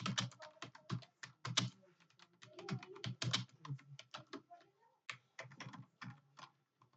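Fast typing on a computer keyboard: a rapid, irregular run of key clicks, with a brief pause about five seconds in.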